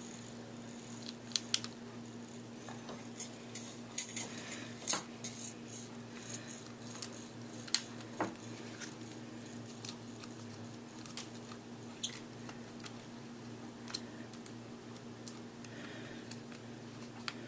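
Scattered clicks, taps and light knocks of small hard parts and screws being handled while robot arm kit pieces are fitted and screwed together, over a steady low hum.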